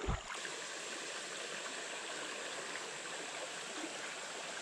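Steady rushing of a small creek's moving water.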